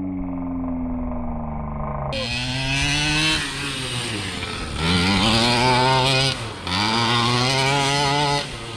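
Primal RC Raminator monster truck's two-stroke gas engine running low for about two seconds, then revved up and back down three times in a row as the truck is driven.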